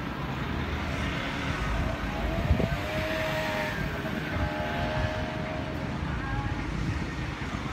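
Steady low rumble of outdoor background noise, with a brief knock about two and a half seconds in and faint pitched sounds twice near the middle.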